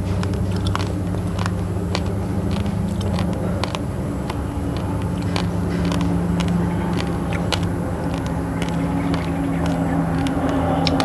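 Raw basmati and glutinous rice being crunched between the teeth: many sharp, irregular crunches, over a steady low engine hum.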